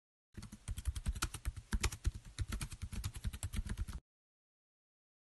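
Rapid keyboard typing clicks, about eight a second, stopping about four seconds in.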